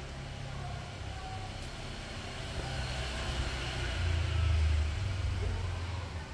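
Low rumbling noise that swells about four seconds in and eases off near the end.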